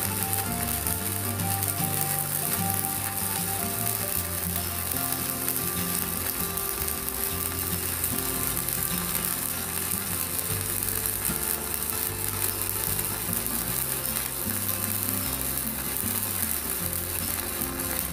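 Stick (MMA) arc welding with a 4.0 mm electrode from a mini IGBT inverter welder: the arc crackles and sizzles steadily as the rod burns down. Background music with low notes plays beneath it.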